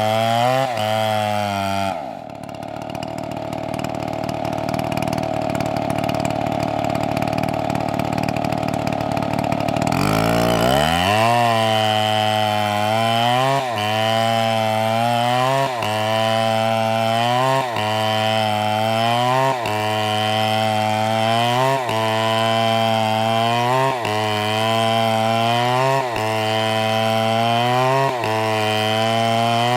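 Chainsaw engine running. Its sound changes about two seconds in, the pitch rises about ten seconds in, and it then runs steadily with a short dip about every two seconds.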